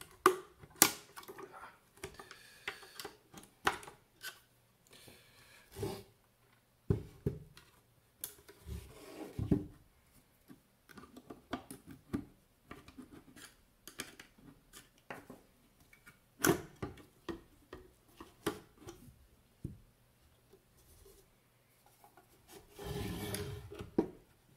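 Metal case and circuit-board assemblies of a Merlin helicopter control display unit being handled during teardown: irregular clicks, knocks and scrapes of metal parts, with a longer scraping rub about 23 seconds in as a board assembly slides out of the chassis.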